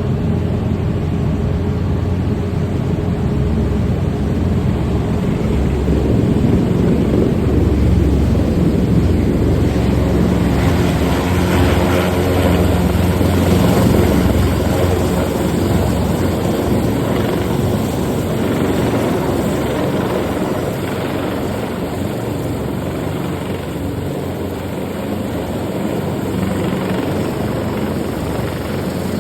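Puma helicopter running loud and steady, its rotor and twin turbines filling the sound. It swells louder around 8 and 14 seconds in, then eases off a little.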